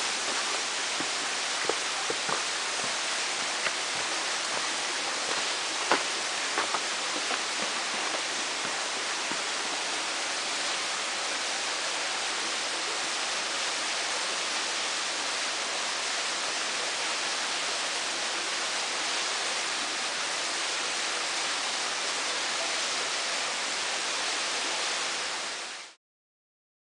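Steady rush of falling water from a waterfall and creek, with a few scattered clicks of footsteps on loose rock in the first several seconds. The rushing sound cuts off about a second before the end.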